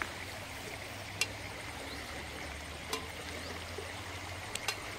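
Steady rush of a flowing stream, with a few short sharp clicks scattered through it.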